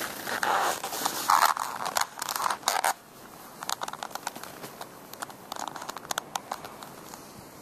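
Footsteps crunching in snow, with heavy crunches through the first three seconds and lighter, scattered crunches after.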